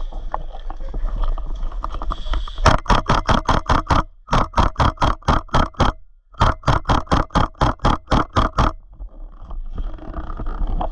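Airsoft gun firing three rapid bursts of shots, each burst lasting one to two seconds, starting about a third of the way in.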